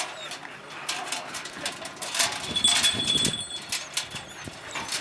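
Hunting dogs whining and yapping amid scattered clicks and knocks, with a short high thin tone a little past halfway.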